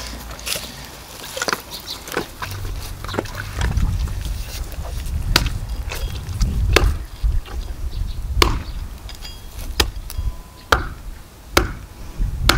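Axe chopping into a pig's head on a wooden stump: a series of sharp blows, about one every second or so, the heaviest in the second half.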